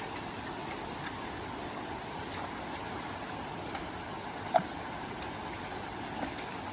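Creek water rushing steadily over rocks, with a single short sharp tap about four and a half seconds in.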